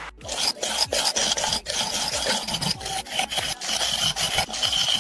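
A hand tool rasping against a hard material in quick back-and-forth strokes, about three a second.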